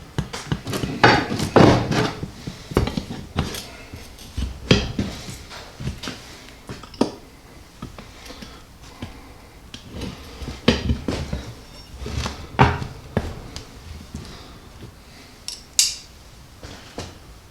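Irregular metallic clinks and knocks of hand tools and parts being handled and set down, scattered through the whole stretch with a few louder strikes.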